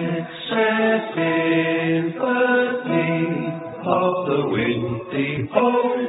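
Music with chanted vocal phrases of long held notes, a new phrase starting every second or two.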